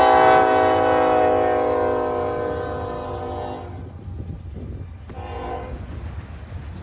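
Norfolk Southern freight locomotive's air horn sounding a long chord that fades away over about three and a half seconds, with a shorter, fainter blast about five seconds in. Beneath it runs the low rumble of passing autorack cars.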